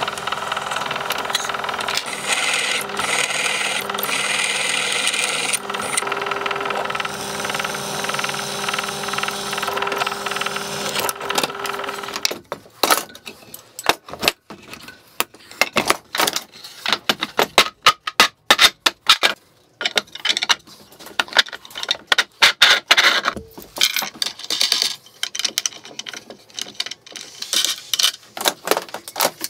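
Bench drill press running and drilling through an aluminium plate, a steady motor hum with cutting noise, stopping suddenly about twelve seconds in. After that, irregular metallic clinks and knocks as steel nuts and washers are handled and fitted onto threaded rods.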